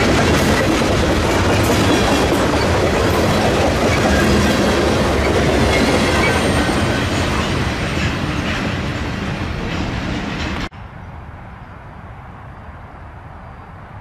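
Loaded covered hopper cars of a freight train rolling past close by, wheels clacking over the rail joints, growing fainter as the last cars go by. About three-quarters of the way through the sound drops abruptly to a much quieter, distant rumble.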